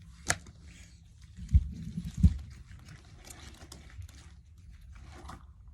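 Fidget toys being handled and set down: a sharp click, then two loud low thumps, with faint rustling in between.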